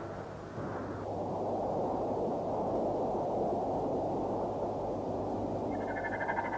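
A steady low rushing noise, like wind, swells about a second in and holds. Near the end, music comes in with trembling high tones.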